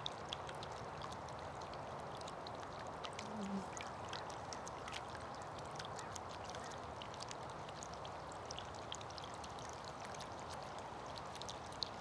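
Faint steady trickle of water in a bird bath, with many small ticks and drips. A honeybee buzzes briefly about three and a half seconds in.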